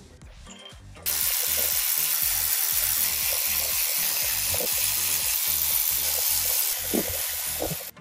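A loud, steady hiss sets in abruptly about a second in and cuts off just as abruptly near the end, over background music with a steady beat.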